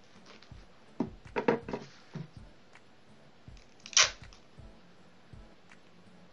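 Gift wrap and sticky tape being handled: crinkly paper rustling about a second in, then a short, sharp rip of tape pulled from the roll about four seconds in.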